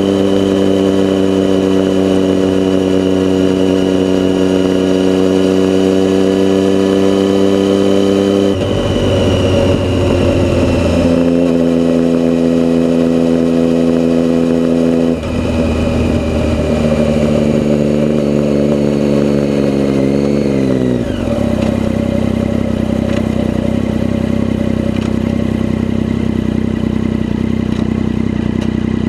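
Motorcycle engine running under way at steady revs, its pitch stepping down twice with gear changes, then falling away about two-thirds of the way in as it slows and settling to a lower steady note.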